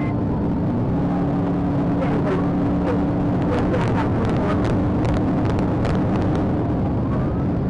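Police patrol car's engine and road noise heard from inside the cabin during a high-speed pursuit: a steady low hum under a wash of tyre and wind noise, with scattered light ticks.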